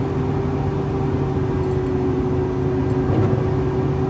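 Steady motor-vehicle noise: an engine's constant hum over an even rush of road or wind noise, unchanging throughout.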